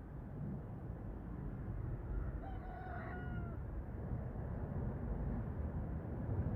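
A rooster crowing once, a single call about a second long that dips slightly at its end, over a steady low rumble.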